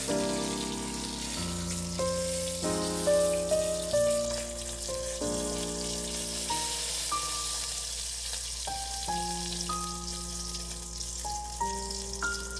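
Oil sizzling steadily around a panko-breaded beef patty as it fries, under background music: a melody of single held notes that change about once or twice a second.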